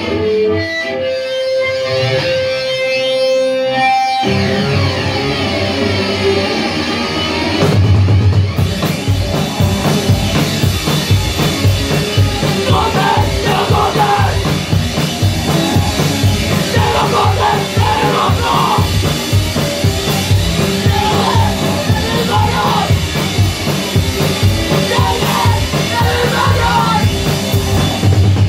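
Live rock band playing loud: a guitar with a few held notes at first, then the full band comes in with electric guitars and drums, settling into a steady beat. Lead vocals come in about twelve seconds in and carry on over the band.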